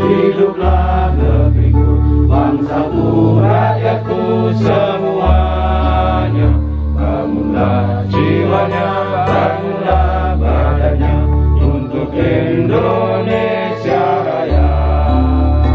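Music: a voice chanting in a slow, wavering melodic line over long held low bass notes that change every two seconds or so.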